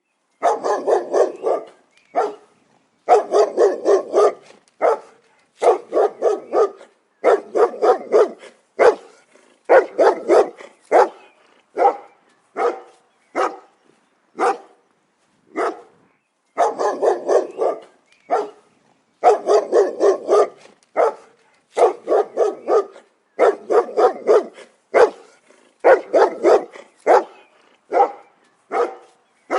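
Pit bull barking over and over in quick runs of several barks, with single barks in between.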